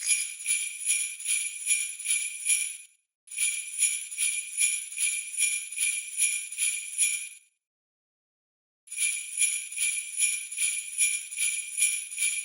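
Railroad crossing warning bell ringing in an even clang, about three strikes a second, each strike the same ringing tone. It stops briefly about three seconds in, then falls silent for over a second before starting again.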